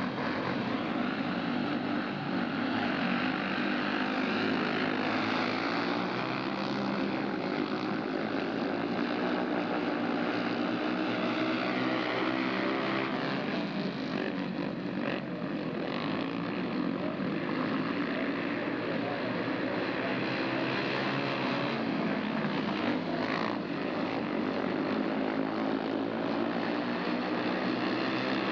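Several speedway motorcycles' single-cylinder engines racing around the track at full throttle, a dense steady drone. It swells over the first second or two as the pack gets going.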